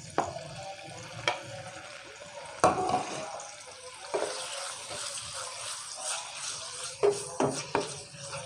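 Raw chicken pieces sizzling in hot oil and garlic in a frying pan, the hiss growing stronger about halfway through. A wooden spatula stirs them, knocking against the pan several times, loudest just under three seconds in.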